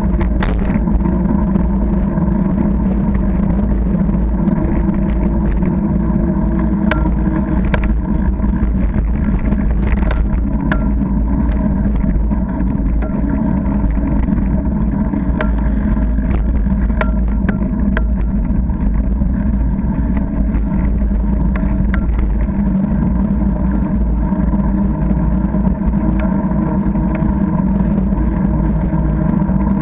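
Steady rumble of a bicycle riding over a rough path, heard through a bike-mounted camera: tyre and frame noise with wind on the microphone. Scattered sharp clicks and rattles from bumps come mostly in the middle stretch.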